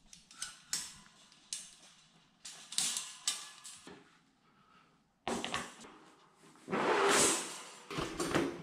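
Wire dog crate panels being handled: scattered light metal clicks and rattles, a brief hush around the middle, then a second-long burst of noise a couple of seconds later.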